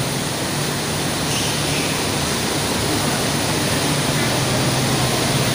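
A steady low hum under an even rushing noise: a bus engine idling at the curb.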